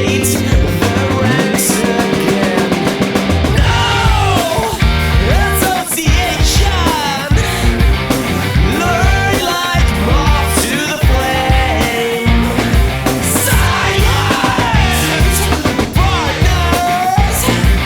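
Rock music with a band and a singing voice, drums hitting steadily.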